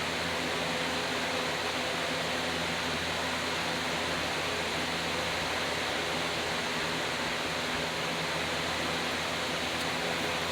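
Steady hiss with a faint low hum and no change in level, with a couple of faint ticks near the end.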